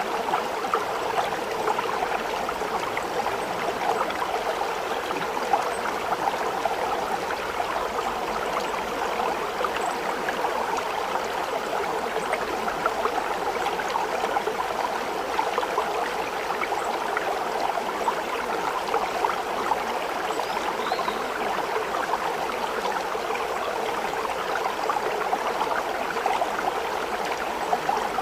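Steady running water, like a babbling stream, with a constant, even rush and fine trickling flicker throughout.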